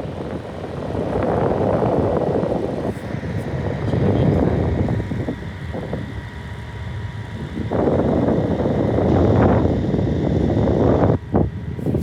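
A 12-inch plastic box fan running on high with its rotating louver on, its airflow buffeting the microphone in gusts that swell and fade as the louver sweeps past. The rush drops off near the end, followed by a couple of sharp clicks.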